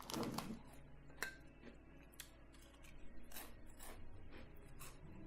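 Chewing with scattered mouth clicks and smacks, irregular and quiet.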